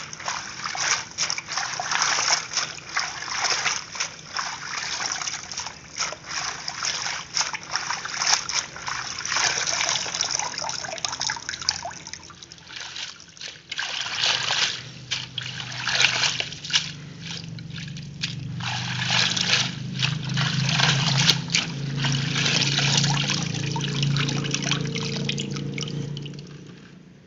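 Water sloshing and splashing as hands swish water spinach around in a plastic basin of water. From about halfway, bunches are lifted out and water trickles and drips back into the basin, fading out near the end.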